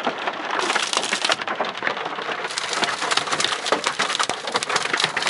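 Hail and rain drumming on a car in a severe thunderstorm: a loud, dense clatter of nickel- to quarter-size hailstones striking the body.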